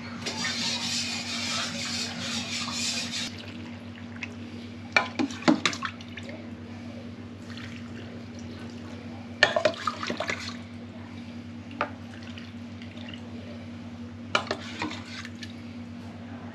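Cooled pickling brine poured into glass jars of packed cucumbers, a steady pour for about three seconds, then a few clusters of clinks against the glass, over a steady low hum.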